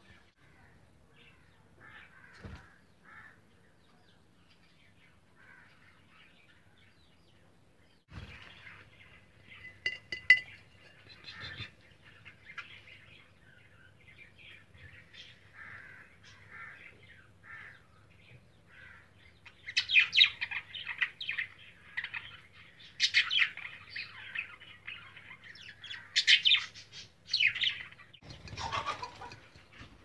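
Budgerigars chirping and chattering in short, quick, high chirps. The chirps are faint and sparse at first, then get busier and louder from about twenty seconds in.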